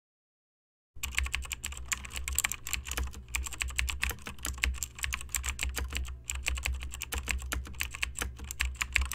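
Fast typing on a computer keyboard, a dense run of key clicks with a couple of brief pauses, over a steady low hum. It starts suddenly about a second in and cuts off abruptly at the end.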